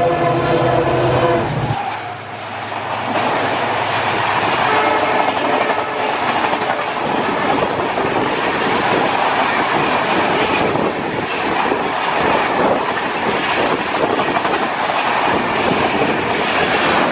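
Horn of an EMD diesel locomotive sounding a steady chord that stops about two seconds in, then the express's passenger coaches rushing past at speed, their wheels clattering over the rail joints in a quick, steady rhythm.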